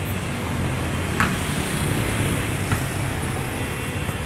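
Steady outdoor background noise, a low traffic-like rumble, with a brief high squeak about a second in.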